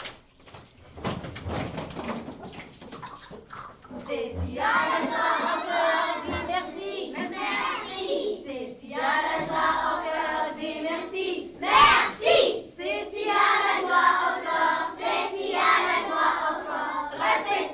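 A group of voices singing together, starting about four seconds in, with a few sharp strikes cutting through the singing.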